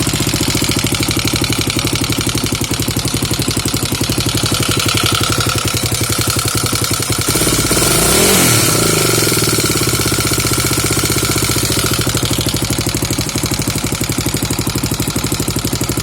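Kawasaki KLX250's single-cylinder four-stroke engine idling with a clanking from the cylinder head, whose cause the owner has not found. About halfway through, the engine is revved briefly and settles back to idle.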